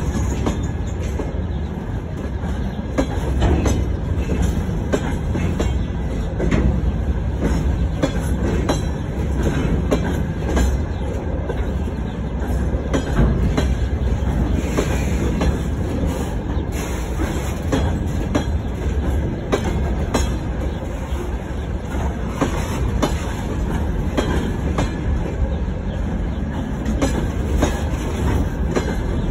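Freight train of open-top gondola wagons rolling past close by: a steady rumble of steel wheels on rail, dotted throughout with sharp clicks and knocks from the wheels and running gear.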